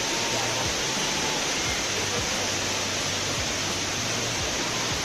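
Chitrakote Falls, a large waterfall on the Indravati River, pouring steadily close by: an even, unbroken rush of falling water.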